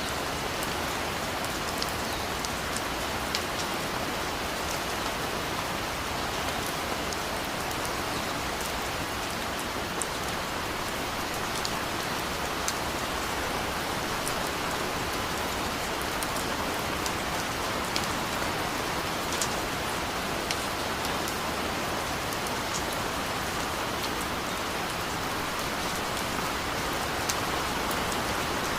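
Steady rain falling, an even hiss with scattered sharper drop hits at irregular moments.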